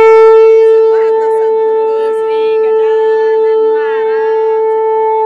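A conch shell (shankh) blown in one long, loud, steady note at a constant pitch, with voices talking faintly underneath.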